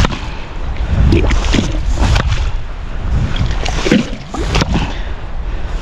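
Wind buffeting the microphone as a heavy, gusting low rumble, with surf noise behind it.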